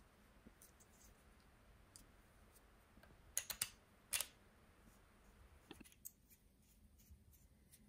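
Sharp plastic clicks as a GoPro HERO10 Black's fold-down mounting fingers are pushed into a Joby GorillaPod's GoPro mount: three quick clicks a little past three seconds in, one more about a second later, then a couple of faint ticks. Near silence otherwise.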